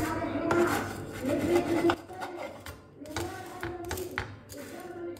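A wooden spatula tapping and scraping in a nonstick frying pan as toasted sandwiches are pressed, over background music with held notes.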